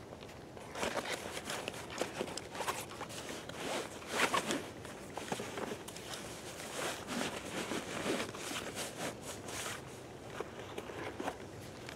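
Irregular rustling, scraping and light clicks of small gear being handled, a little louder about four seconds in.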